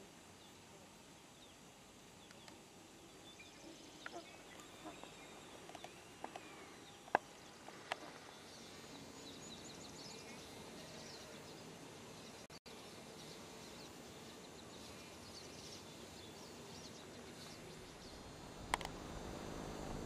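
Quiet outdoor ambience with a few thin, high bird calls scattered through the middle, and two sharp clicks about a third of the way in. Near the end, low wind buffeting on the microphone.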